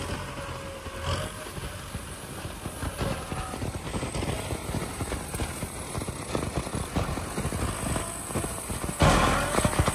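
Kubota M6040SU tractor's diesel engine running under load as it pushes soil with its front blade, with a dense, irregular clatter throughout. It gets much louder about nine seconds in.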